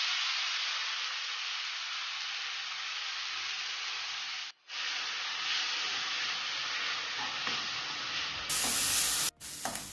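Chopped onions sizzling in hot oil in a metal kadai, a steady frying hiss, with a metal spoon stirring them from about five seconds in. The sizzle cuts out briefly twice.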